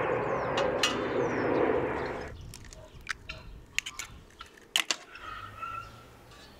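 Jet airliner flying overhead, a steady loud noise with birds chirping above it, cut off abruptly a little over two seconds in. A few sharp clicks and knocks follow, from work at enamel bowls of raw eggs.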